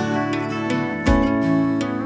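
Background music: guitar chords strummed, a new chord struck about a second in and left to ring.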